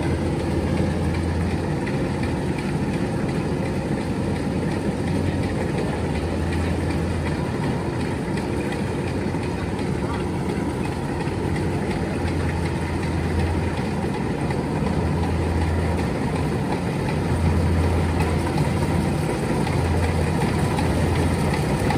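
Kubota DC-105X combine harvester's diesel engine running steadily while cutting rice in a muddy field, its low hum swelling and easing every few seconds, a little louder near the end as the machine comes closer.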